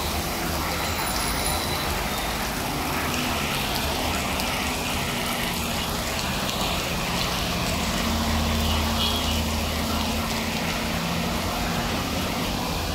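Heavy monsoon rain falling hard, a steady even hiss of rain on paving and rooftops, with a low hum underneath that swells about eight seconds in.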